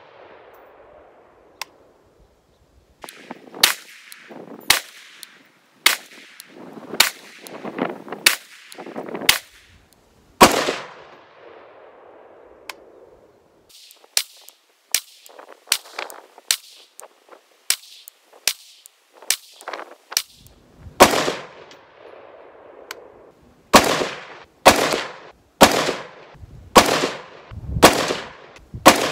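Short-barreled AR-15 with a 7-inch 5.56 barrel firing single shots at roughly one a second, each sharp crack trailing off in echo. There is a pause of a few seconds near the middle, and a run of somewhat quieter shots follows it.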